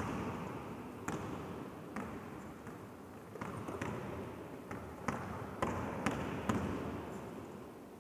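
Basketball bouncing on a sports hall floor while a wheelchair player dribbles: about ten sharp, irregularly spaced bounces, echoing in the large empty hall.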